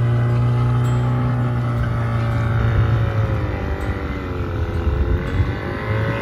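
Boat engine running close by, its pitch dipping briefly about two thirds of the way through and then recovering.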